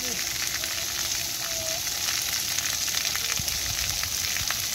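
Steady hiss of splash-pad fountain jets spraying water onto wet concrete.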